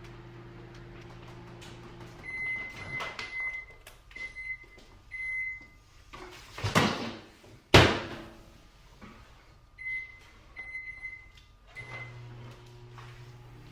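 A microwave oven runs with a steady hum that stops about two seconds in. A series of short high beeps follows, then the door is opened and shut with a sharp bang near the middle. Keypad beeps follow and the hum starts again near the end.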